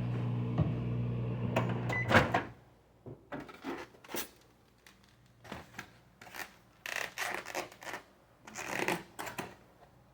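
Microwave oven running with a steady hum, which stops about two seconds in with a loud click. After that come scattered light clicks and rustling handling noises.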